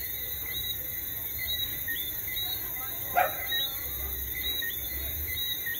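Steady night chorus of small, rapidly repeated chirps from insects and frogs, over a low engine rumble, with one short louder call about three seconds in.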